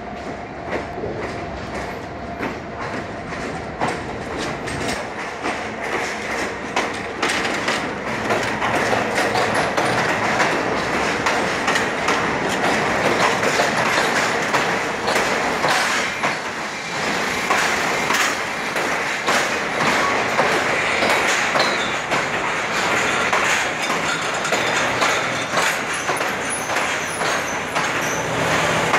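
Passenger train coaches rolling slowly past, their steel wheels clicking over the rail joints. It gets louder about eight seconds in, as the cars come alongside.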